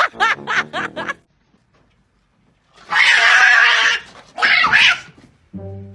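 Cat hissing twice, a long loud hiss and then a shorter one, after a brief pitched, wavering vocal sound in the first second.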